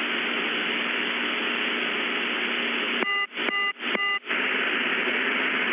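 Steady radio static hiss with a faint low hum. About three seconds in it is cut into by three quick bursts of digital data tones, then the static carries on.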